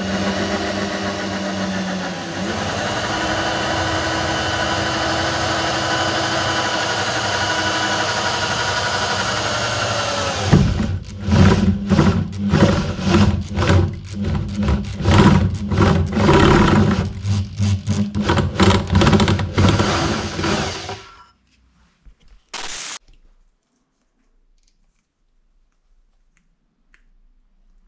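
Electric drill with a step drill bit boring through a metal flat bar clamped in a vise. It runs steadily for about ten seconds, then in rapid choppy bursts, and stops about 21 seconds in. A brief noise follows, then quiet.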